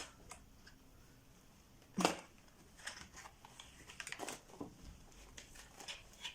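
Light clicks, taps and rustles of parts being handled and fitted together during assembly, with one sharper knock about two seconds in.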